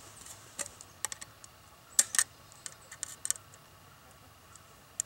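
Tin snips cutting short slits into the rim of a tin can lid: a scattering of sharp metallic clicks and snips, several in close pairs, as the blades bite through the thin sheet steel.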